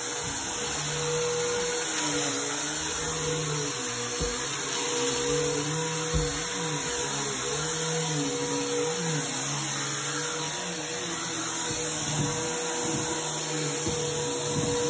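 Bissell PowerForce upright vacuum cleaner running on carpet, its motor hum wavering a little in pitch as it is pushed back and forth. There are two brief knocks around four and six seconds in.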